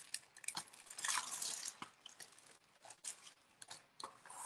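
Paper handling: a sheet of carbon paper and a printed pattern being shifted and lined up on a canvas, giving light rustling and scattered small clicks, with a longer rustle about a second in.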